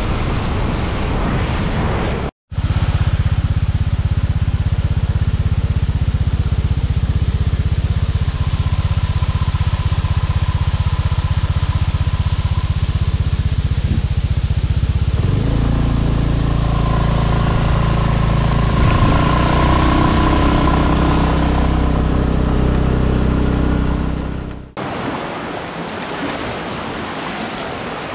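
Motorbike engine running at a steady low drone while riding, its pitch shifting about halfway through. It is preceded by a brief rush of wind on the microphone and followed near the end by surf breaking on a rocky shore.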